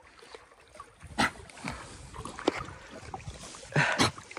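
Water splashing and sloshing with a few sharp splashes, the loudest pair near the end.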